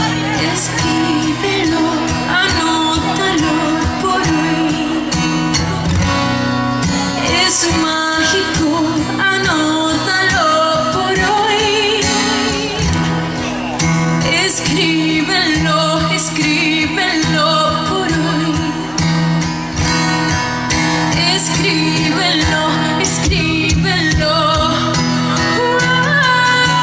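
Live pop music played through a concert PA: a woman sings into a handheld microphone over a band with guitar.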